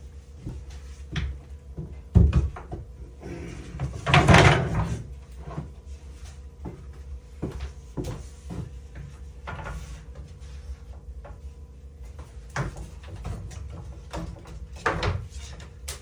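Scattered knocks and thuds of wood being handled, with a louder noise lasting about a second around four seconds in.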